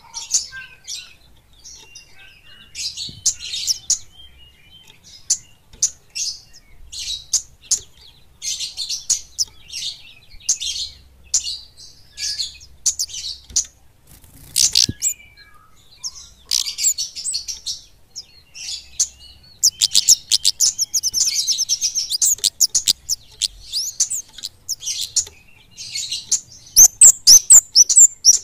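Caged flowerpeckers (kemade) singing in fast, thin chirps and short trills. A dense, rapid run of notes comes about 20 seconds in, and loud, sharp notes come near the end.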